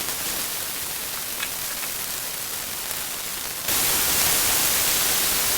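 Chicken frying in hot oil in a pan, a steady sizzling hiss that turns louder and brighter about two-thirds of the way in.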